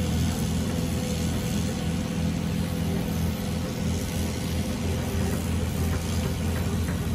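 Caterpillar hydraulic excavator's diesel engine running steadily while its boom and bucket swing and lift.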